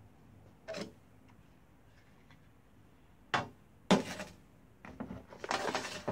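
Objects set down on a metal-topped workbench: sharp knocks as a glass jar with a metal screw lid is put down, then a longer clatter near the end as a rotary tool with a cutting disc is laid beside it.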